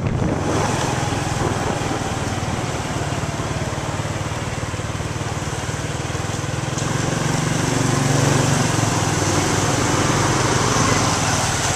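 Small motorbike engine running while riding, with steady wind and road noise. The engine grows louder about two-thirds of the way through.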